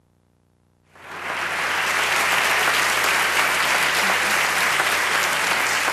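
Audience applause. It starts suddenly about a second in, out of near silence, and keeps up steadily.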